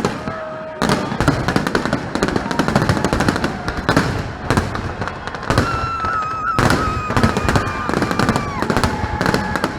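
Fireworks display: after a single sharp crack, a dense, rapid barrage of bangs and crackling starts about a second in and keeps on without a break.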